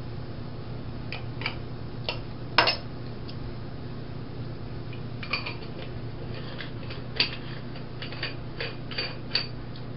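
Parts of an aluminium Bialetti moka pot clinking and knocking together as they are handled at the sink: a string of light, irregular metallic clinks, the sharpest about two and a half seconds in and again about seven seconds in, over a steady low hum.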